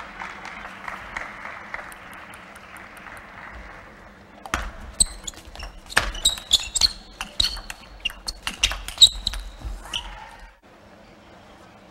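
Applause in a large hall dying away, then about four and a half seconds in a fast table tennis rally: the celluloid ball clicks sharply off the table and the players' bats in quick succession, each hit with a short ringing note. The rally lasts about six seconds and ends abruptly.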